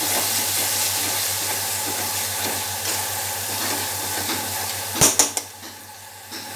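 Spice paste of tomato, onion and ground spices sizzling in oil in a metal kadai while a metal spatula stirs and scrapes it, the masala being fried down. About five seconds in come two sharp knocks of the spatula against the pan, and the sizzle is quieter after them.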